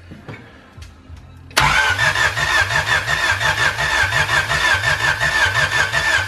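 Starter motor cranking a Honda H22A DOHC VTEC four-cylinder, kicking in suddenly about a second and a half in with an even, rhythmic chugging and a wavering whine. The engine does not catch: it has spark but the injectors aren't firing, so it gets no fuel.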